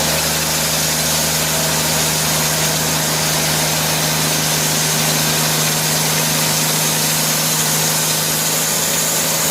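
Engine-driven portable sawmill running steadily at full speed as its blade cuts through a hemlock log.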